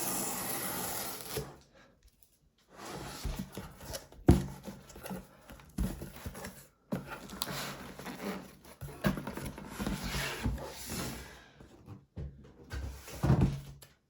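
Hands handling a cardboard product box on a table: irregular rubbing and scraping with a few sharp knocks, and a brief pause about two seconds in.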